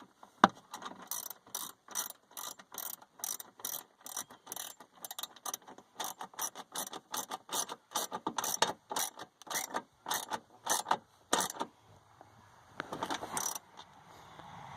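Ratchet clicking in quick strokes, about three clicks a second, as a 10mm bolt holding the air box is tightened; a short rustle or scrape near the end.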